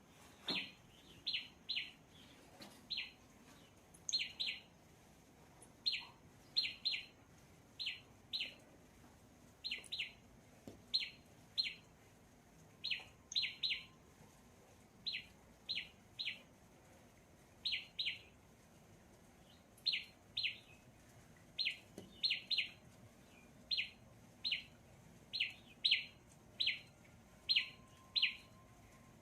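A bird chirping: short, sharp notes that drop quickly in pitch, repeated over and over, often in quick pairs, about one to two a second.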